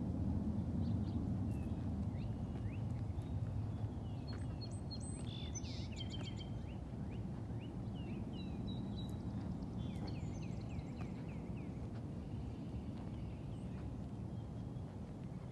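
Outdoor ambience: a steady low rumble, with runs of short high chirping calls repeated many times through the middle and again near the end.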